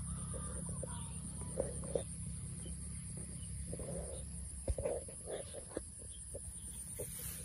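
Open-field ambience: a steady low wind rumble on the microphone, with faint scattered short animal calls, most of them about four to five seconds in.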